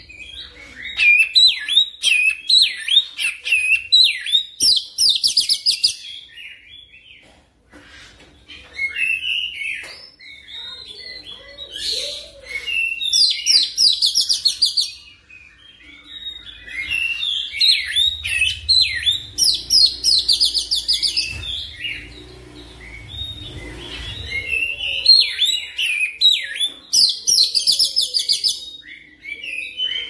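Oriental magpie-robin (kacer) singing in long continuous phrases of varied whistles and chirps. Most phrases end in a fast run of rapid high notes, with short pauses between them.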